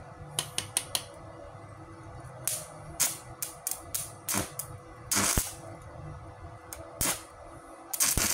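Stick-welding arc from a 4 mm electrode on a small 450-watt inverter welder, crackling and popping in short irregular spurts that keep stopping and restarting. The arc keeps breaking because the 4 mm rod is too heavy for the machine.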